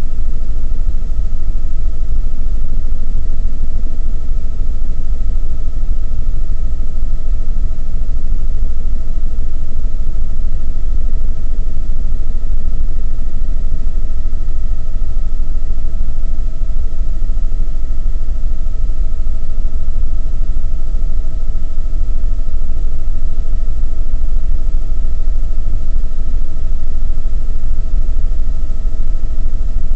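Helicopter in level flight heard from inside the cabin: a loud, steady low rumble of rotor and engine with a constant high whine over it.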